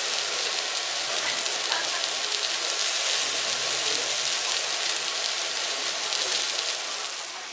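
Sauce-marinated lamb and bean sprouts sizzling on a hot cast-iron Genghis Khan grill, a steady dense hiss, with the sauce scorching on the pan.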